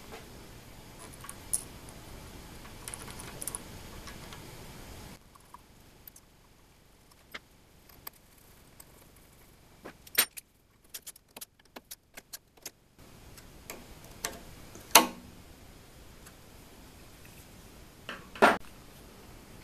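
Scattered small metallic clicks and clinks of socket cap screws and tools being handled while bolting a CNC router's Z-axis plate, with a sharper clank about fifteen seconds in and another near the end.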